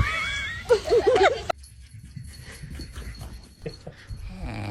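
Dog giving high, gliding whining squeals for about the first second and a half. Near the end a low, steady buzzing drone like a snore rises in.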